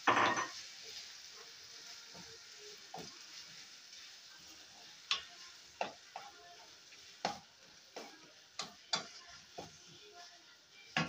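Ground beef in tomato sauce sizzling faintly in a frying pan while being stirred with a wooden spoon, the sizzle briefly louder at the very start just after water goes in. From about halfway on, the spoon knocks sharply against the pan about seven times.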